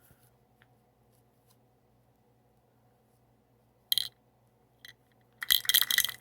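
A small handheld fidget toy clicking and rattling as a piece is worked into a hole: one sharp rattling click about four seconds in, a faint tick shortly after, then a quick run of clicks near the end.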